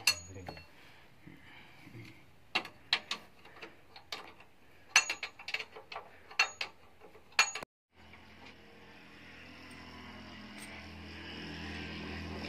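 Sharp metallic clinks and taps as tools and parts knock on a hand tractor's steel cage wheel and axle hub, in scattered clusters. After a cut about eight seconds in, a steady low hum slowly grows louder.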